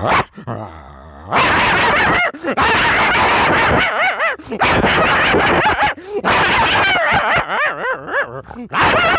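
A man imitating a big dog ready to fight, growling and barking close into a handheld microphone. Long harsh growls broken by short pauses, then a quick run of short rising-and-falling barks near the end.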